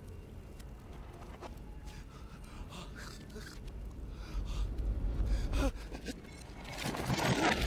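A man's strained gasps and breaths from a film fight soundtrack played in reverse, over a low rumble, with a louder noisy swell near the end.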